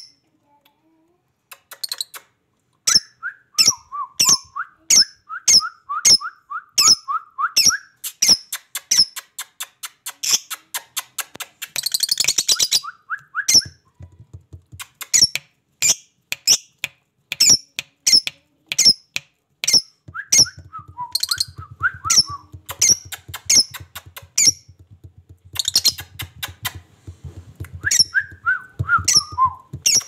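A lovebird and a budgerigar calling: sharp, high chirps repeated about twice a second, mixed with stretches of lower chattering warble. There is a brief pause near the start and a short noisy burst of squawking about twelve seconds in.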